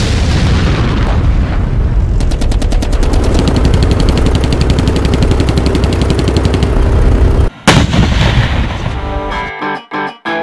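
Battle sound effect: rapid machine-gun fire at about ten shots a second over a heavy low rumble. It cuts off about seven and a half seconds in after one last blast, and guitar music starts near the end.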